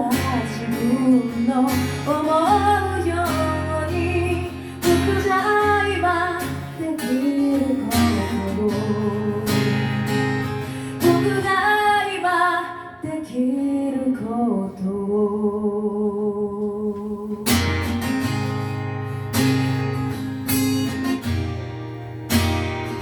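A live song: a singer's voice over strummed acoustic guitar, with a sung line that holds a long note about two-thirds of the way through.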